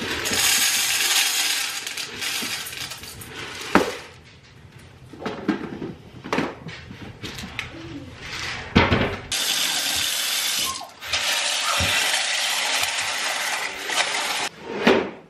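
Dry pasta poured into a plastic container, rattling for about the first four seconds, then a few knocks of containers on the counter and one sharp clatter. From about nine seconds a kitchen tap runs into a steel pot for about five seconds, with a short break near twelve seconds.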